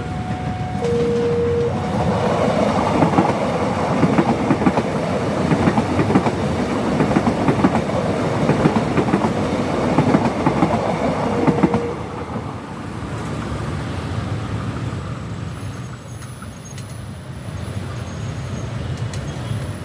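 Level-crossing warning signal repeating two alternating tones, which stops in the first two seconds. The KA Bandara airport rail-link train then passes over the crossing, its wheels clattering over the rail joints for about ten seconds. After it has gone, steady road traffic noise remains.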